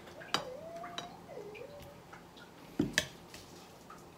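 Plastic serving spoon scooping creamy fruit salad from a glass bowl into a small bowl, with a sharp clink about a third of a second in and two more close together near the three-second mark. Two short wavering squeaks come in the first two seconds.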